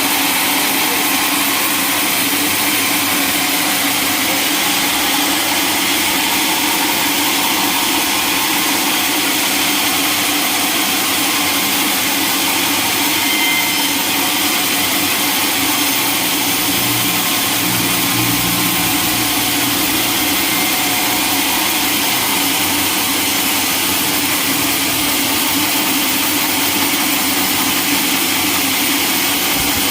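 Sawmill machinery running steadily: a loud, even mechanical noise with a strong hiss.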